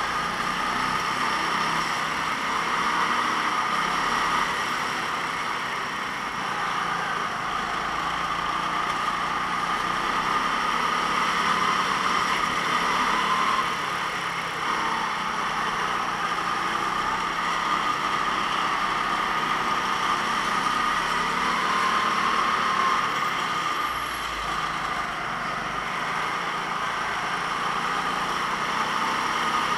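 Racing go-kart engine running hard, a steady high-pitched drone whose level and pitch dip briefly three times before picking up again.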